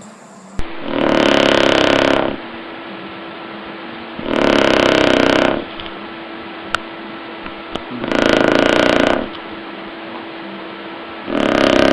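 A dog snoring loudly: four long snores, each a second or so, about every three to four seconds.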